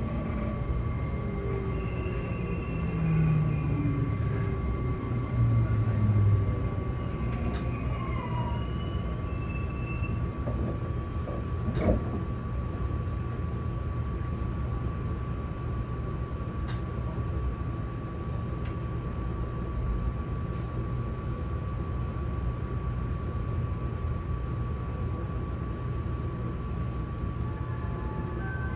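Running noise inside an E257 series 0 limited express electric train car, picked up through the window glass: a steady rumble of wheels on rail with a constant high tone over it. Two brief louder low swells come in the first few seconds, and a single sharp click comes near the middle.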